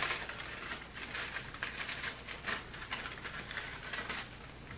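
Clear plastic protective film on a diamond painting canvas crinkling and rustling in many small irregular crackles as hands lift and smooth it over the canvas.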